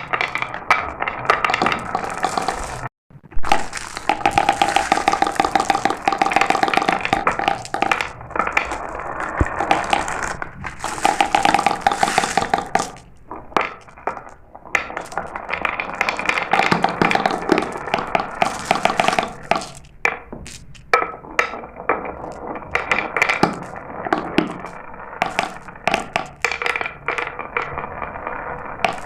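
Glass marbles rolling and clattering down a marble run: a dense, continuous rattle of rapid clicks, with a steady hum from the rolling at times. The sound cuts out briefly about three seconds in.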